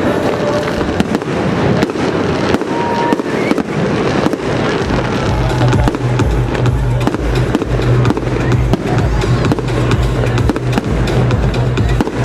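Fireworks display: a dense run of bangs and crackles from exploding shells, with music playing and its heavy bass coming in about four and a half seconds in.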